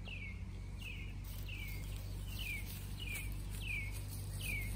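A bird repeating a short downward-sliding call about twice a second, over a low steady background rumble.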